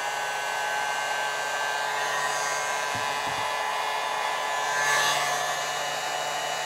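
Electric hot air gun running steadily, its fan blowing with a steady motor whine, heating heat-shrink tubing over a soldered wire joint. It swells slightly about five seconds in.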